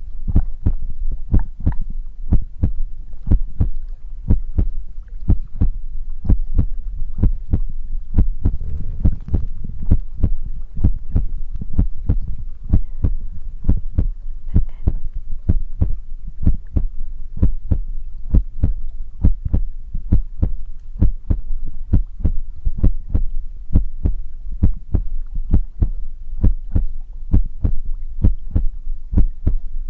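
Steady, muffled thumps on a binaural ear-shaped ASMR microphone, about two to three a second, deep and close to the mic.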